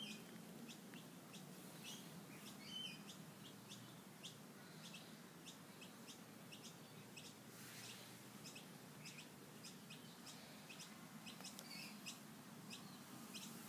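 Faint outdoor ambience: small birds chirping, short high chirps about two a second, over a low steady hum.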